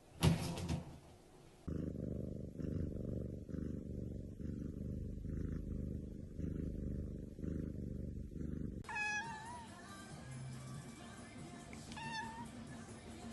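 A short loud burst as water pours from a pot into a bathtub, then a cat purring in slow pulses, then a cat meowing twice in short wavering calls.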